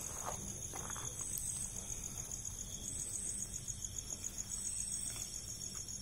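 Night insects, crickets among them: a steady high trill, with a second, higher call that comes in and goes out every second or two.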